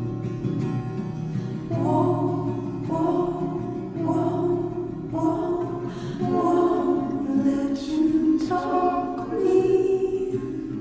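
Background music: a song with a singing voice over steady accompaniment, the voice coming in about two seconds in.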